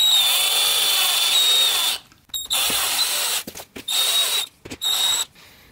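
Cordless drill-driver driving screws through a metal hinge mounting plate into a fibreboard wardrobe door. Its motor whines in one run of about two seconds, then in three or four shorter bursts as the screws are seated.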